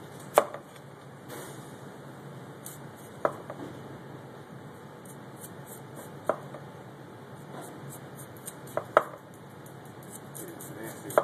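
Kitchen utensils knocking and clinking now and then, a sharp single hit every few seconds with a quick double knock near the end, over a steady room hum.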